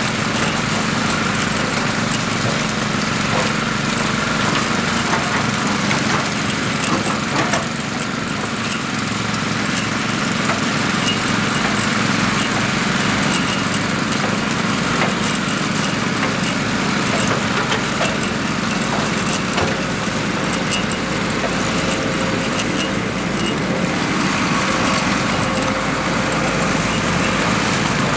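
Small petrol engine of a concrete power trowel running steadily as it smooths and finishes the concrete surface.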